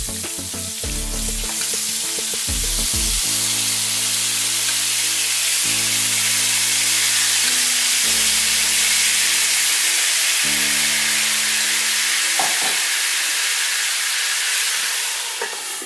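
Wine-laced tomato sauce hitting a hot frying pan of seared wahoo fillets: a loud frying sizzle with hissing steam, swelling a few seconds in as more sauce goes in and easing near the end.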